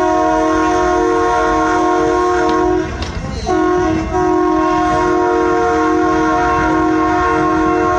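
Locomotive horn sounding a multi-note chord in two long blasts: one of about three seconds, then after a short break a second that runs on past the end, over the rumble of the moving train.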